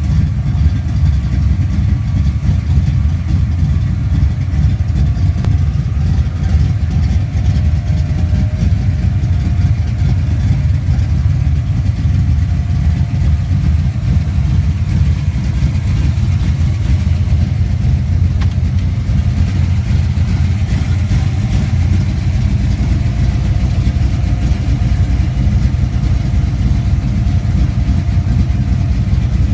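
1967 Ford Mustang street car's engine idling steadily with a loud, deep exhaust note; the car has a small exhaust leak.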